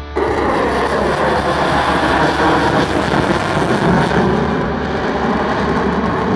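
Loud jet noise from a Lockheed Martin F-22 Raptor's twin Pratt & Whitney F119 turbofans as the fighter pulls through a high-g turn. It cuts in suddenly just after the start and stays loud and dense throughout.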